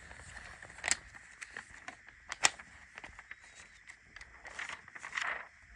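Scattered clicks, taps and rustling, with two sharper clicks about a second and two and a half seconds in and a brief rustle near the end.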